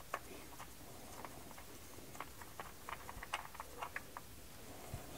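Faint, irregular small clicks and ticks as a fuel pressure regulator is spun off the end of a fuel rail by gloved hand, the clicks coming thicker in the middle.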